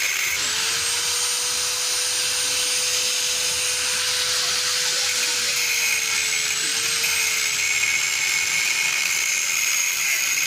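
Handheld power tool running steadily at high speed, with a constant motor whine that sags slightly in pitch about two-thirds of the way through, then cuts off sharply just after the end.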